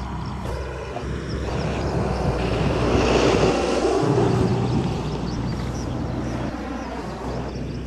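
Rushing noise of a passing vehicle that swells to a peak about three to four seconds in and then slowly fades away.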